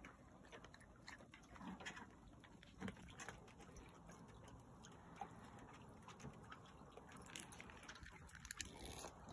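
Raccoons moving about in a small plastic pool: faint, scattered clicks and taps over near silence.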